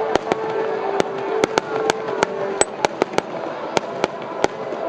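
Fireworks going off in a rapid, irregular string of sharp pops, about three a second, over steady held tones.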